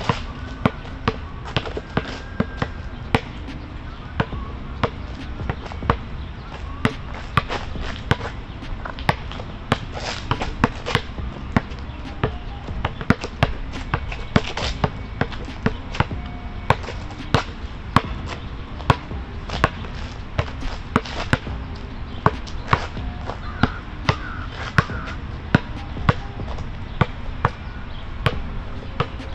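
Basketball being dribbled, a steady run of sharp bounces at roughly two a second.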